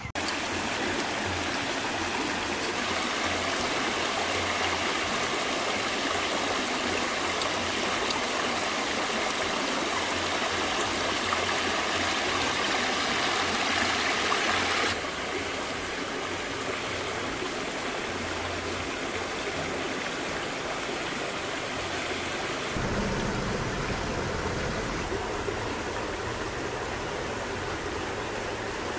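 Shallow stream rushing and splashing over rocks, a steady noise that drops a little in level about halfway through.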